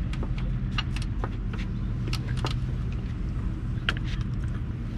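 Irregular sharp metallic clicks from a sailboat roller furler's ratchet (clicker) mechanism being worked, over a steady low mechanical hum.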